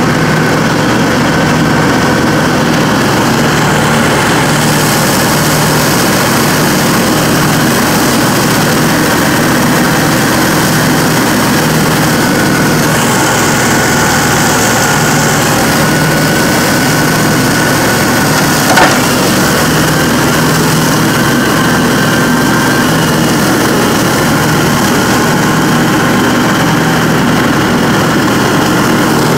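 Dixie Chopper zero-turn riding mower running steadily as its deck chops up and throws fallen leaves, with one sharp knock about two-thirds of the way through.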